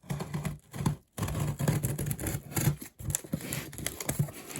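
Scissors scraping along and slitting the packing tape on a cardboard shipping box, in short irregular strokes with a couple of brief pauses.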